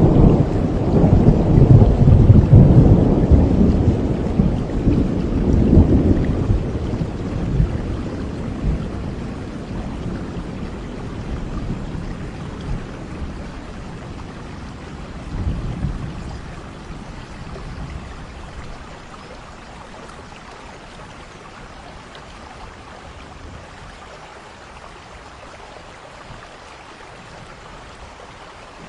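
Thunder rumbling over steady rain, loudest in the first few seconds and dying away slowly, with a smaller roll about halfway through; after that only the even hiss of the rain.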